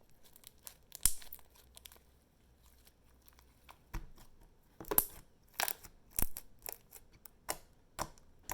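Hands stretching and squishing glossy slime, giving irregular sticky pops and crackles as it pulls apart and presses together.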